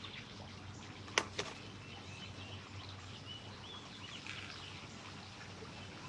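Faint outdoor background with small birds chirping, and two sharp clicks in quick succession about a second in.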